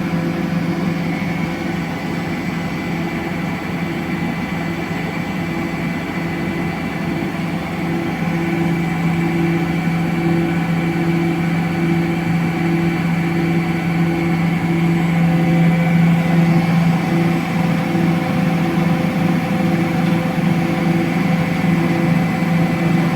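Electrolux CompassPRO WH6-27 commercial washer spinning a load, a steady motor-and-drum hum with a higher tone that pulses on and off, growing a little louder about halfway through.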